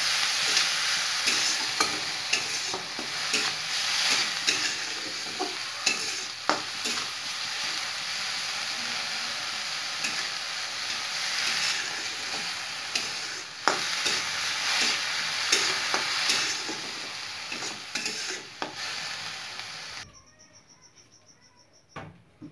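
Small shrimp sizzling as they fry in hot oil in an aluminium kadai, stirred with a metal spoon that scrapes and taps against the pan. The sizzling cuts off suddenly near the end.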